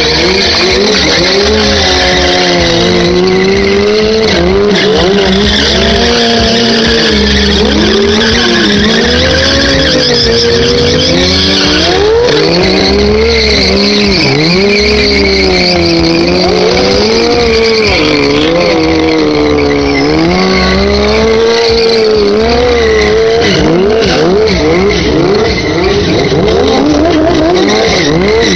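Sport motorcycle engines revving hard during stunt riding, the pitch climbing and dropping again and again, with tyres squealing on the pavement.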